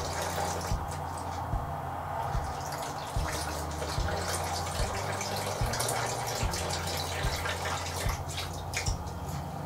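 Water poured slowly in a thin stream from a glass jar into a bowl of flour. A steady low hum runs underneath, with faint ticks a little more than once a second.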